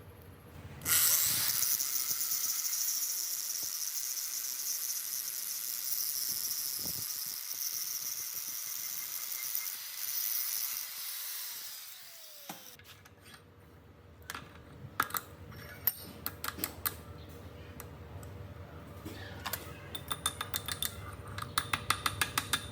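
A steady high hiss for about twelve seconds, typical of a power tool or air working on a metal surface. It ends with a falling whine like a motor winding down, then comes a faint hum with scattered light metallic clicks and clinks that grow busier near the end.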